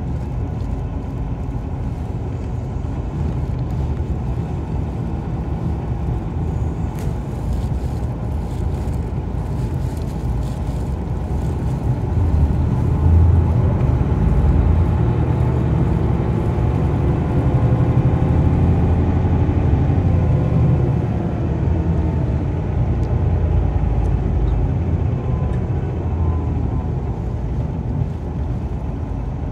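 Highway coach heard from inside its cabin: engine and road noise as the bus drives through town. The rumble grows louder for several seconds midway, with a faint whine rising and falling in pitch.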